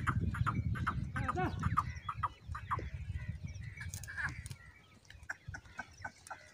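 Birds chirping and chattering, with a low wind rumble on the microphone that is heaviest for the first couple of seconds and dies away about halfway through.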